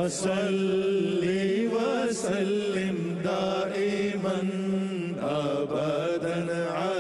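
Background devotional song, an Urdu naat: a single voice singing a flowing melody over a steady low drone.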